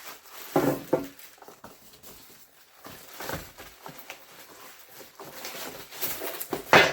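Irregular rustling and knocking from handling packaging and parts, with a sharper, louder burst near the end.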